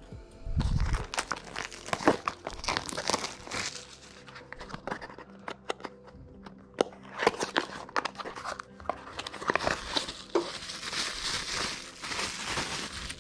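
Small cardboard box being unpacked: a knife slitting the packing tape, cardboard flaps rustling and clicking as the box is opened, then a bubble-wrap bag crinkling near the end as the part is pulled out of it.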